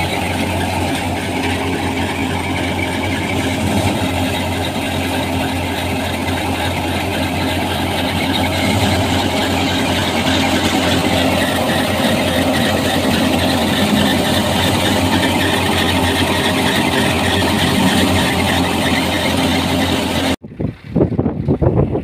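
Belt-driven wheat thresher running steadily under load, a dense mechanical noise over a constant low engine hum. About two seconds before the end it cuts off abruptly to wind buffeting the microphone.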